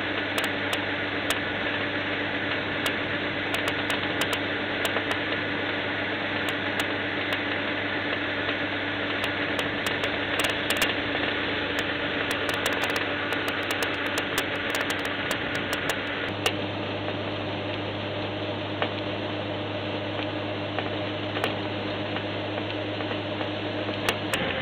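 Farm machine working in a field: its engine runs steadily with a steady hum, while its moving parts give scattered clicks and rattles.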